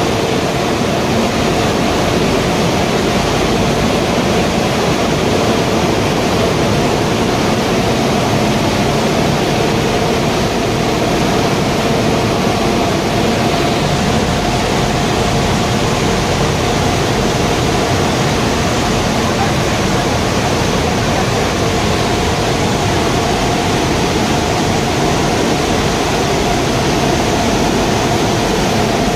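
Waste-tire rubber powder production line running: grinding mills and pneumatic conveying blowers make a loud, steady rush with a constant mid-pitched hum.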